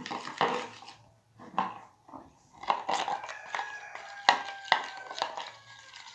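A metal spoon stirring glue and pink dye in a plastic bowl, clicking and scraping against the sides of the bowl, with the clicks coming faster in the second half.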